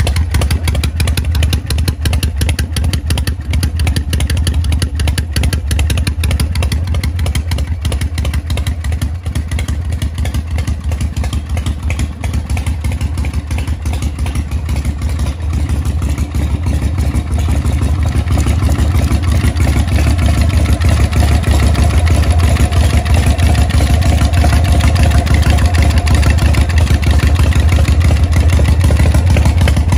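Harley-Davidson Shovelhead V-twin running steadily, with a dense stream of low exhaust pulses; it gets a little louder about two-thirds of the way through.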